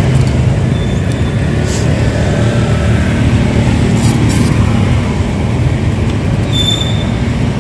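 Steady low rumble of road traffic, with a few brief clicks and a short ringing clink near the end.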